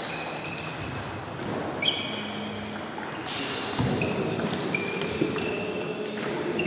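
Table tennis rally: the ball clicking off bats and table, each hit with a short high ping, in a string of hits about a second apart. Rallies at neighbouring tables add more hits in the hall.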